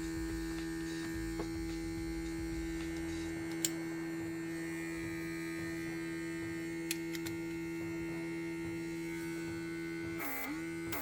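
Small electric air-brush compressor running with a steady, even-pitched electric hum. A couple of light clicks come about three and a half and seven seconds in.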